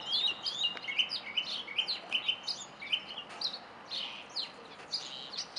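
Small songbirds chirping: a busy run of quick, high chirps, several a second, some sweeping up and some sweeping down, densest in the first half.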